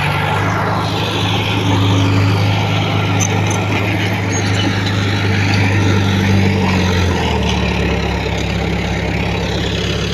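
Diesel engine of heavy earthmoving equipment (a bulldozer or dump truck) running steadily under work, its low engine note shifting about seven seconds in.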